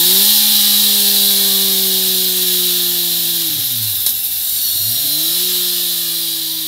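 Triumph Tiger 1050 Sport's inline-three engine running through a MIVV Oval Carbon Cap aftermarket exhaust at high revs. The pitch sags slowly while held. A little over three seconds in it drops steeply and climbs back within about a second and a half, then holds high again.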